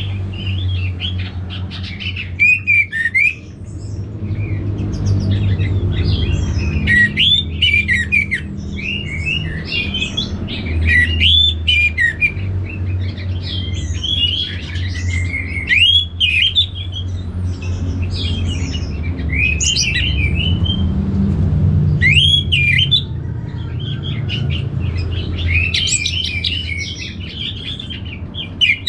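Orange-headed thrush singing: a long run of quick, varied whistled and chattering phrases with short pauses between them, over a steady low hum.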